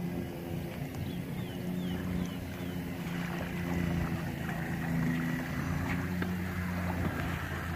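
Suzuki outboard motor on a bay boat running low and steady at slow speed with a constant hum.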